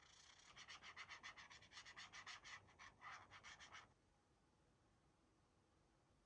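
Felt-tip marker scratching across coloring-book paper in quick back-and-forth strokes, faint, stopping about four seconds in.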